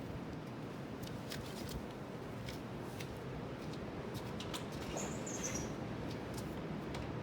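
Steady wash of Pacific Ocean surf, with scattered small sharp clicks and one short high chirp, falling slightly in pitch, about five seconds in.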